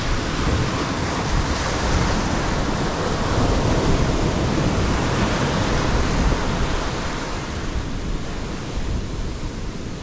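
Small waves breaking and washing up a sandy beach close by, the hiss of the wash swelling and easing, with wind rumbling on the microphone.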